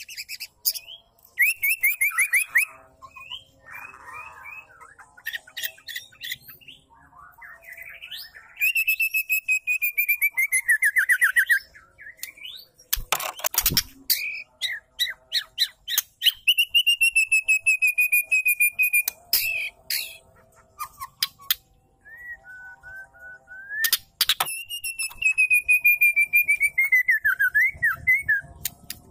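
Female white-rumped shama calling: long runs of rapid rattling notes, each about three seconds and sliding slightly down in pitch, with short whistled notes and a few sharp clicks between them. This is the female's call, used to rouse male shamas into song.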